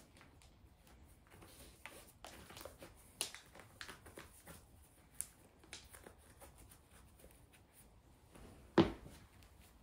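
Quiet rustling and light tapping of shoes being put on, with one louder thump near the end.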